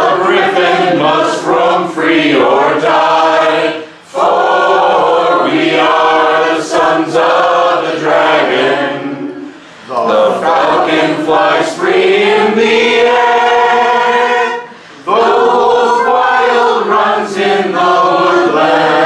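A small group of voices singing a cappella together, led by a man, in long sung phrases with three short breaks for breath.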